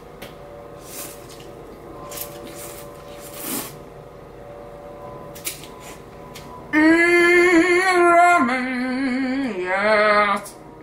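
A woman eating noodles makes a few soft eating noises. About two-thirds of the way in comes a long, loud hummed "mmm" of enjoyment, its pitch stepping down over two or three notes.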